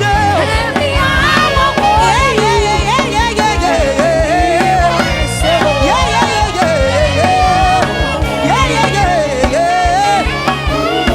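Live gospel praise music: a voice sings a melodic line over a band with drums and keyboard.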